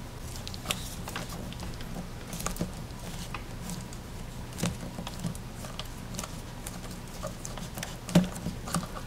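Soft, irregular clicks and taps of fingers pressing Play-Doh into the plastic mold on a Play-Doh Can Heads Hulk figure and handling the hollow plastic toy, over a faint steady hum.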